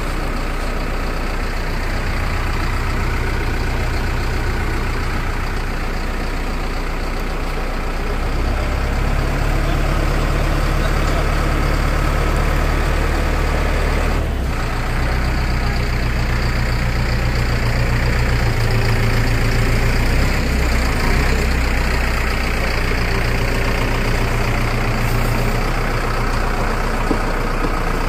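Diesel engine of a Bull backhoe loader running under load as the front loader lifts and carries a concrete pipe. Its steady low note steps up about eight seconds in, drops briefly midway and rises again.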